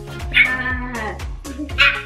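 Background music with a steady beat. A high voice cries out briefly about half a second in and again near the end.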